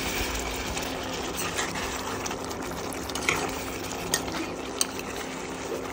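Metal spoon stirring a thick chicken and potato curry in a wok, over a steady sizzle of the simmering sauce. A few light clicks of the spoon against the pan are scattered through.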